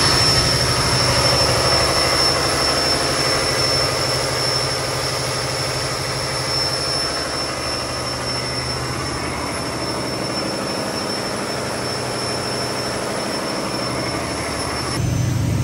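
MTU 76-litre V16 gas engine of a combined heat and power plant running steadily, very loud, with a steady high whine over its low drone.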